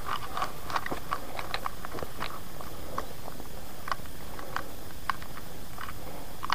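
Irregular crunching and crackling footsteps of a hiker on a forest trail, with twigs and leaf litter snapping underfoot, over a steady background hiss.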